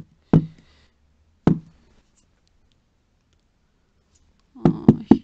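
Sharp knocks and clicks of cosmetic containers and packaging being handled and set down on a table. There are a few single knocks near the start, a quiet stretch, then a quick run of clicks and knocks near the end.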